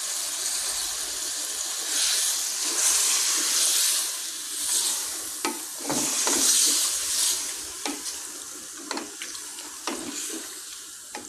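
Chicken with vegetables and spices sizzling in a hot pan. The hissing swells twice, and a spoon knocks against the pan several times as the mix is stirred. The sizzle dies down toward the end.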